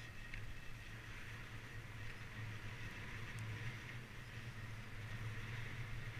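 Skis sliding over groomed snow as the skier runs downhill, a steady hiss with a low steady rumble underneath.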